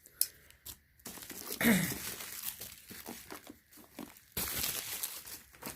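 Plastic packaging crinkling and rustling in irregular handfuls as it is pulled off a boxed craft kit, with a short vocal sound about a second and a half in.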